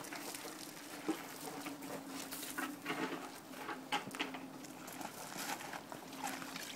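Scattered light crunches and clicks of feet shifting on gravel, over a faint steady hum.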